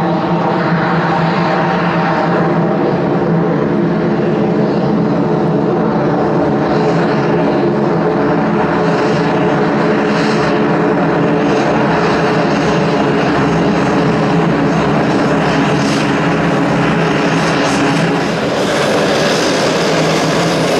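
Pilatus PC-12's single Pratt & Whitney PT6A turboprop taxiing at low power close by: a steady propeller drone made of an even stack of tones over engine hiss, dipping slightly for a moment near the end.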